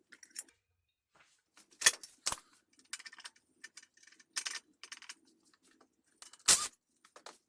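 Small metal engine parts and tools clinking and clattering as they are handled and set down, in scattered sharp clicks with a louder metallic knock near the end.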